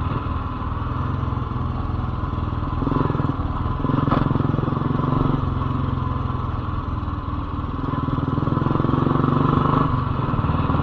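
Royal Enfield Lightning 535's single-cylinder engine running as the bike is ridden on the road, its note rising near the end as it picks up revs.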